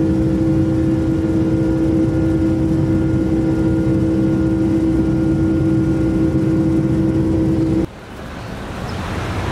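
Propeller aircraft engine running with a steady hum that cuts off suddenly near the end. Street traffic noise follows.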